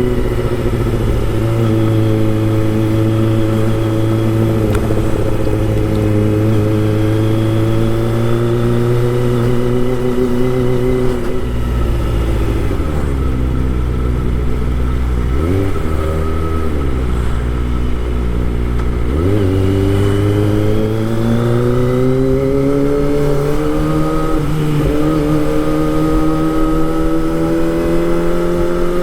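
Kawasaki Ninja ZX25R's 250 cc inline-four engine running under way. The engine note drops as the rider eases off about a third of the way in, with two quick rev changes, then climbs steadily again as the bike accelerates.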